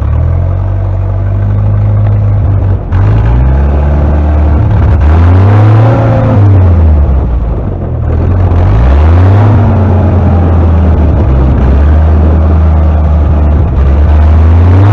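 A 1956 Jeep CJ5's Willys Hurricane F-head four-cylinder engine pulling the Jeep along. The engine speed rises and falls several times in the first half, holds steady for a few seconds, then rises again near the end.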